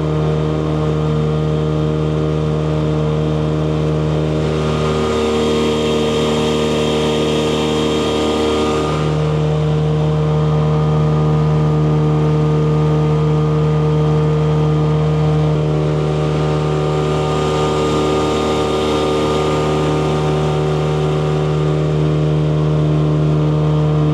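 A small motorboat's engine running steadily at full throttle, with water and wind hiss that swells twice.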